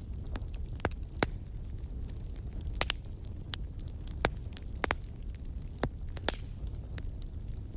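Wood fire crackling: irregular sharp pops and snaps, about a dozen, over a steady low rumble of the burning fire.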